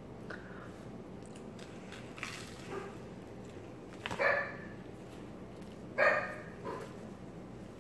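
A dog barking: two short barks about four and six seconds in, with a few fainter sounds between.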